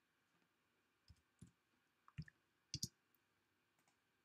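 About six sharp computer-keyboard keystrokes, typing a short name, between about one and three seconds in over near silence.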